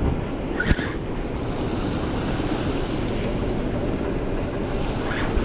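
Heavy rushing water in the fast current below a dam with its spill gates open, a steady roar, with wind buffeting the microphone. A single short click comes under a second in.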